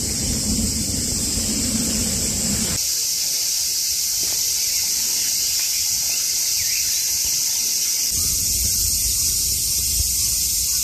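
Loud, steady, high-pitched insect chorus droning without a break, with the quieter low background changing abruptly twice.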